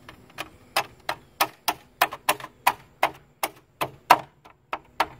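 Aftermarket plastic hubcap being knocked onto a car wheel by hand around its rim, a quick run of sharp plastic knocks about three a second as its retaining ring seats on the wheel.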